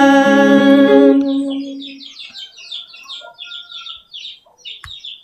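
A man's long sung note into a microphone, with reverb, fades out over the first second or two. Then comes rapid high chirping from a small bird, several chirps a second, with a soft knock near the end.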